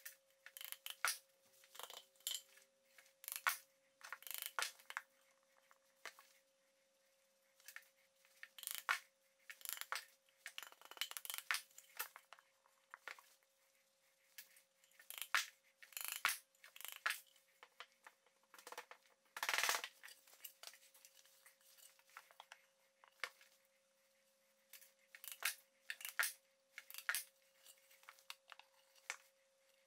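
MDF panels being handled, fitted together and set down on an MDF workbench: scattered light knocks, taps and scrapes of board on board, the loudest a heavier thump about two-thirds of the way in. A faint steady tone runs underneath.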